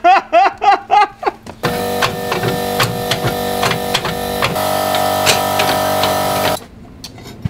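A man laughing hard for about a second, then guitar background music that starts abruptly and cuts off suddenly near the end.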